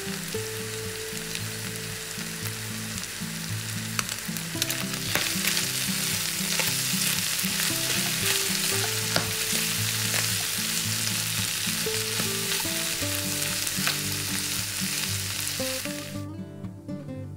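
Diced chicken and mushrooms sizzling in hot oil in a nonstick frying pan, with the clicks of a spatula stirring them. The sizzle cuts off suddenly near the end, leaving soft acoustic guitar music that has been playing underneath.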